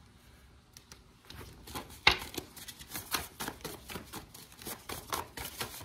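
Cards being handled and shuffled: a run of quick, irregular clicks and flicks of card stock starting about a second in, with one sharper snap about two seconds in.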